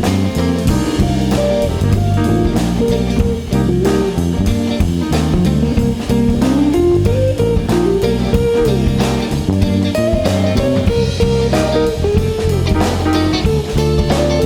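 Live jazz band playing: a guitar plays a single-note melodic line over electric bass and drum kit.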